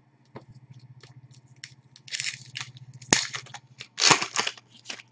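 A foil trading card pack wrapper being torn open and crinkled, with small clicks of handling and then loud crackling tears about two, three and four seconds in.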